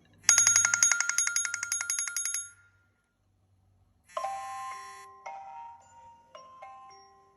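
Two iPhone stock ringtones in turn. First a rapid bell-like trill of fast repeated pulses lasts about two seconds and stops. After a short silence a slower ringtone of soft chime-like notes begins, its pitch changing about once a second.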